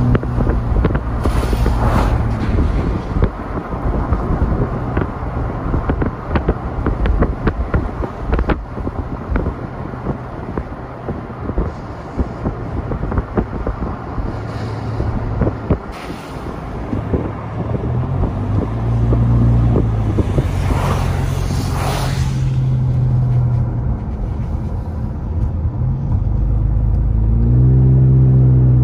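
Car driving, heard from inside the cabin: a steady engine and tyre drone with many short knocks and bumps from the road. The engine note rises near the end as the car speeds up.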